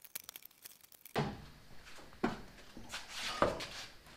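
Passenger door of a 1977 Chevrolet C10 being hung and fitted on its hinges by hand: three metal knocks and clunks about a second apart, with some scraping and rustling between them, starting about a second in.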